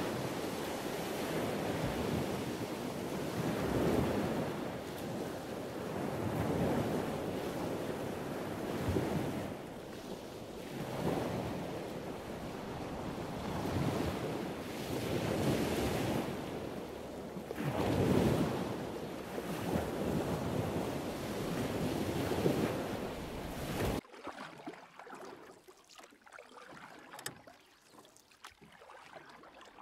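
Wind buffeting the microphone, a rushing noise that swells and eases every couple of seconds, stops abruptly near the end. What follows is a much quieter stretch of faint water sloshing as a dachshund wades through shallow water.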